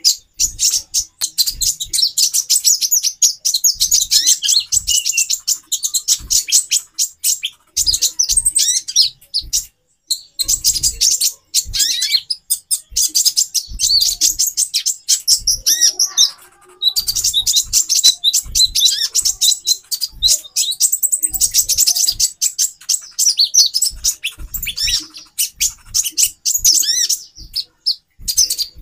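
Several female konin (kolibri ninja sunbirds) chirping in a rapid, dense, high-pitched chatter, with a short lull about halfway through and frequent low thumps underneath.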